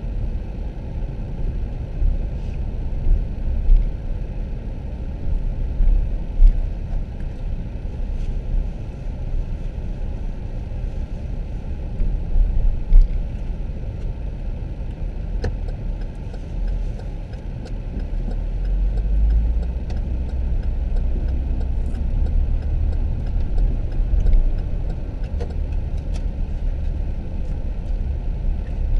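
An SUV driving, heard from inside the cabin: a steady low rumble of engine and road noise, with a few brief knocks. The rumble grows louder about two-thirds of the way through.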